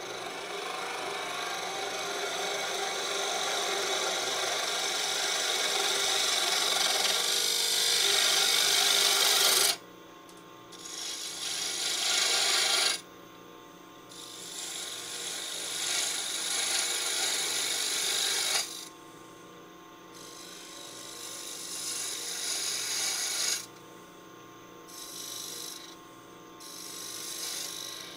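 Half-inch gouge cutting wood spinning on a lathe: one long scraping cut of nearly ten seconds, then several shorter cuts that each start and stop abruptly, over the steady hum of the running lathe.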